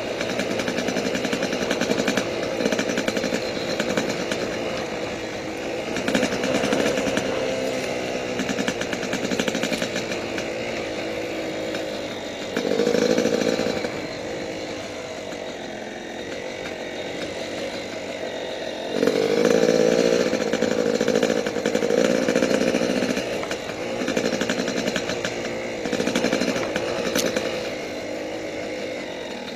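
Yamaha YZ250 two-stroke dirt bike engine being ridden hard, the throttle opened in repeated surges and rolled off between them. The longest and loudest run of throttle comes about two-thirds of the way in.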